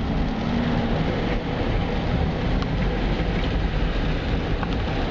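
Steady rumbling rush heard from inside a car driving through a flooded street, with water washing over the windshield.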